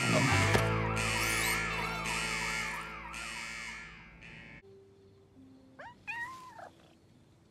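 An alarm siren wails in a fast repeating up-and-down tone, with pulsing bursts of noise and a held low music chord beneath it, and it all cuts off sharply about four and a half seconds in. Near the end a cat gives one short meow.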